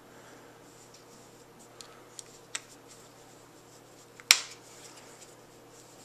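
Small plastic clicks and taps as a battery pack is worked into the back of a Baofeng UV-3R handheld radio, with one sharp click a little over four seconds in.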